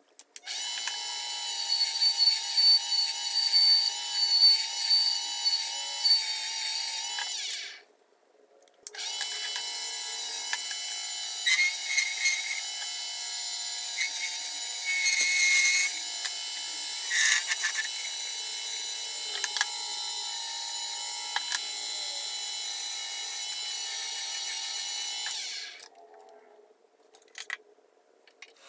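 Wood lathe running with a steady motor whine while a maple handle blank is turned. It is switched off about seven seconds in, starts again a second later, and winds down near the end. A few brief louder scrapes come from the tool cutting the spinning wood.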